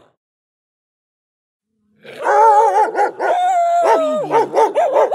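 Silence for about two seconds, then a dog vocalising in drawn-out, wavering howls and yowls that slide up and down in pitch, with one long held note.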